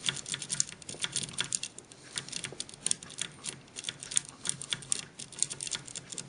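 Bogota rake scrubbing in and out across the pin stacks of a Master Lock M5 padlock under light tension: a rapid, irregular run of small metallic clicks.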